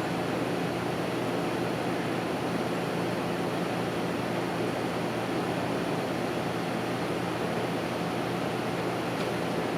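Steady rushing background noise with a constant low machine hum, unchanging throughout.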